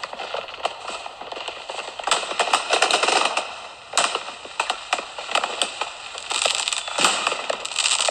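Fireworks sound effect: a rapid run of crackling pops and sharp bangs, thickening into dense flurries about two seconds in and again near the end.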